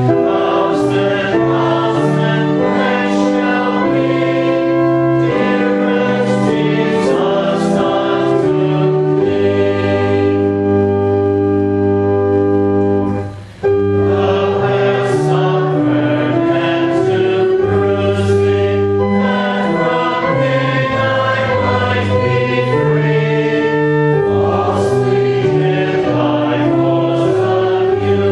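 Congregation singing a hymn in parts to a sustained organ-like accompaniment, phrase after phrase, with a brief break about 13 seconds in.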